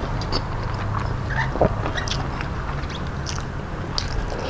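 Close-up eating sounds: wet chewing and lip-smacking clicks as a mouthful of mashed food eaten by hand is chewed, with fingers scraping food together on a steel plate. A steady low hum runs underneath.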